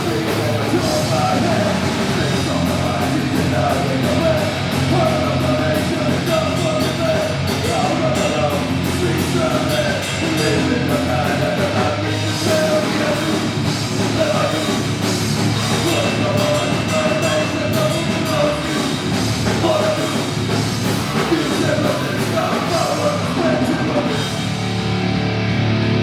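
A thrash metal band playing live at full volume: distorted electric guitars, bass and a drum kit, with a singer's voice over them.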